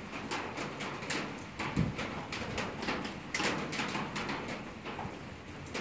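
Burn-barrel fire in the rain: irregular crackles and ticks, several a second, over a steady hiss.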